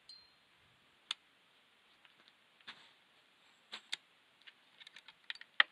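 Sharp metallic clicks from a Browning X-Bolt .280 Remington bolt-action rifle: a few single clicks, then a quick cluster near the end as the bolt is worked and the firing pin snaps. The firing pin strikes but no shot follows, which is a misfire that the shooter puts down to the rifle's delay.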